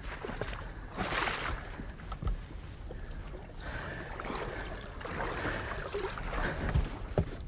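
Knocks and scuffs of a man in waders climbing into a heavy wooden rowing boat: boots and hands bumping and scraping against the wooden hull, with a sharp knock near the end.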